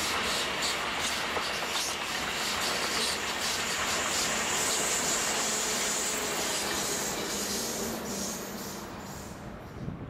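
ICE high-speed train passing at speed: a loud, steady rushing hiss with quick clicks of wheels over rail joints in the first couple of seconds, fading about eight seconds in as the end power car goes by.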